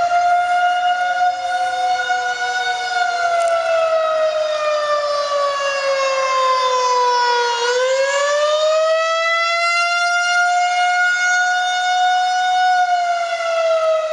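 Outdoor tornado warning siren wailing: one pitched tone with many overtones that sinks slowly to a low point about halfway through, then climbs back and holds. It is sounding a tornado warning.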